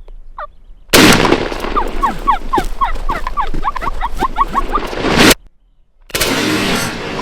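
A sudden, very loud shotgun blast about a second in, followed by a wild turkey gobbler's rapid run of loud gobbling notes over heavy noise; the sound cuts off abruptly after about four seconds and loud noise returns a moment later.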